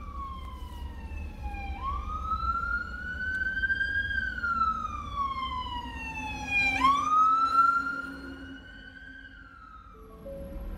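Ambulance siren wailing, its pitch sweeping slowly up and down twice before fading out near the end. It is heard from inside a vehicle over a low engine and road rumble.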